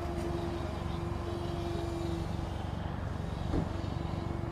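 Radio-controlled model biplane's engine droning steadily over a low rumble, with a short blip about three and a half seconds in.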